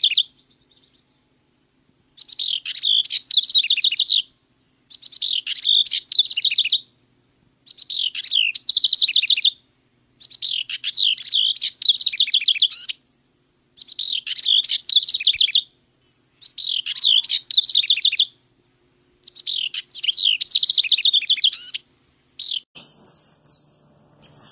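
House wren singing: about seven bubbly, rapidly trilled songs of around two seconds each, repeated with short pauses between. Near the end come a few short high-pitched sounds.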